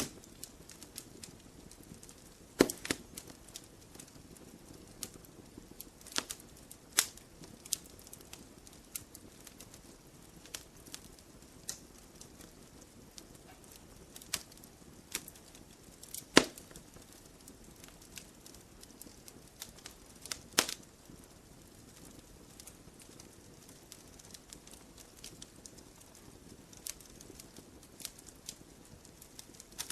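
Wood logs burning in a campfire: scattered sharp pops and snaps over a low, steady hiss, with a few much louder pops spread through.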